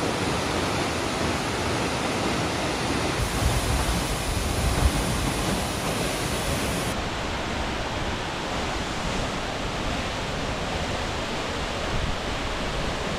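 Steady rushing roar of a waterfall, its tone shifting abruptly about three and seven seconds in.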